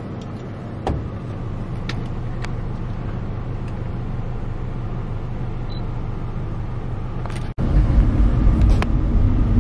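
Bus engine idling steadily, heard from inside the cabin, with a few light clicks in the first few seconds. About seven and a half seconds in it cuts to a louder, rougher engine rumble.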